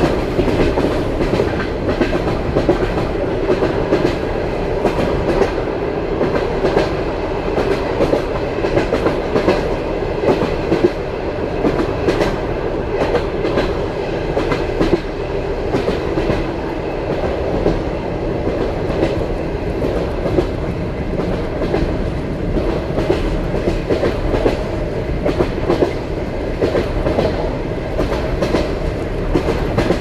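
Wheels of a passenger railway carriage clattering over the rail joints at running speed, heard from inside a platzkart sleeping car. It is a steady rumble with frequent sharp clicks.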